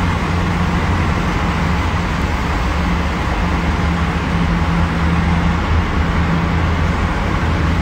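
Steady road and engine noise inside a moving car's cabin, a constant low drone under an even rushing hiss.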